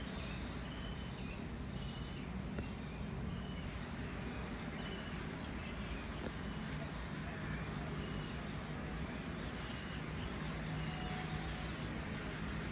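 Outdoor ambience over rural hills: a steady background of rumble and hiss with scattered short bird chirps. A low steady hum comes in about ten seconds in.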